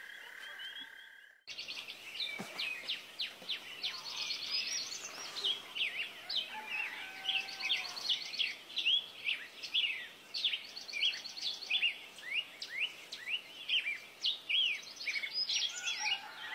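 Many birds chirping and trilling in quick, overlapping calls, after a steady high-pitched hum that cuts off suddenly about a second and a half in.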